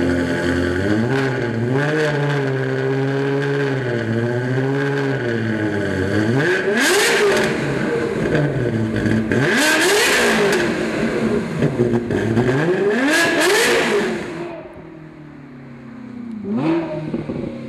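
2003 Ferrari F360's 3.6-litre V8 revving through a Fabspeed Maxflo muffler and quad tips. It idles with small blips of the throttle for the first few seconds, then revs sharply up and back down several times. After an abrupt drop in level, the car is heard accelerating past, with one brief rising rev near the end.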